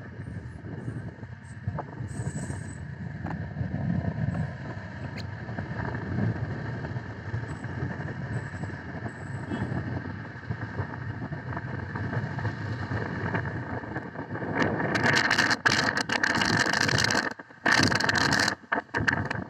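Road traffic: engines and tyres of passing cars, vans and buses, a steady rumble. About three-quarters of the way through, a much louder hiss cuts in and drops out abruptly several times.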